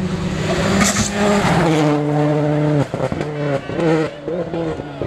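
A 2005 World Rally Car's turbocharged four-cylinder engine running hard at high revs. About three seconds in, the note breaks off several times in quick succession as the driver lifts and changes gear.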